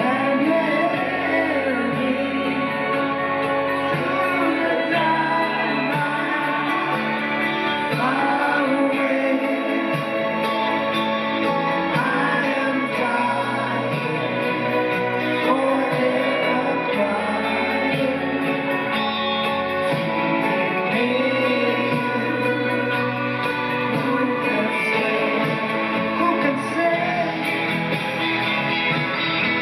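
A live pop-rock band playing a song in concert, with singing over the accompaniment.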